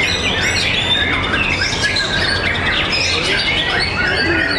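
Several white-rumped shamas (murai batu) singing at once, a dense, unbroken tangle of overlapping whistles, trills and chirps.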